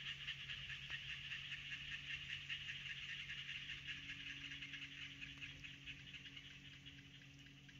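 A dense, steady chorus of high chirring animal calls from the waterside, with a low steady hum underneath; it grows fainter near the end.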